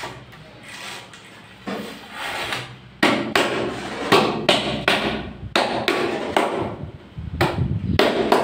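Sharp knocks of a hand striking the face of a large wall tile, bedding it into the combed adhesive behind it. The knocks start about three seconds in and come roughly twice a second.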